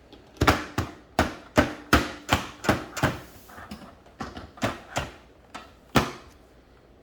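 A toy digging tool striking the hard casing of a Treasure X treasure tomb, trying to break it open: about a dozen sharp knocks, two to three a second, stopping about six seconds in.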